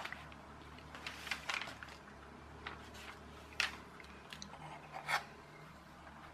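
Hands handling small electronic parts and tools on a hardboard work surface: a sharp click right at the start, then scattered light ticks, taps and scrapes.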